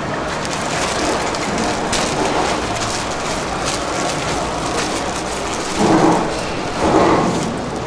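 Clear plastic bag crinkling and rustling as a salmon fillet is slid into it and the bag is wrapped around the fish, with two louder rustles about six and seven seconds in.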